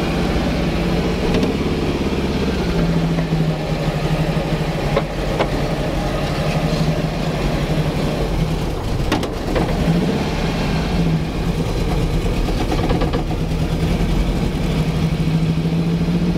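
1971 Volkswagen Beetle's air-cooled flat-four engine running as the car drives along, heard from inside the cabin, with a steady drone that comes and goes as it pulls. The engine is running smoothly, which the driver calls running great.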